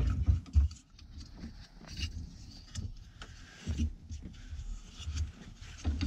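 Dodge Grand Caravan's underbody spare-tire cable winch being cranked with a long T-handle rod: irregular clicks and low knocks as the cable draws the spare tire up under the van toward snug.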